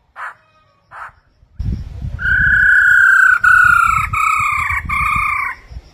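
Black-throated laughingthrushes calling: two short notes, then a long, loud whistled phrase of about four slightly falling notes over a low rattling churr. This is the female's 'ro ro' churring call, used to stir a male into song.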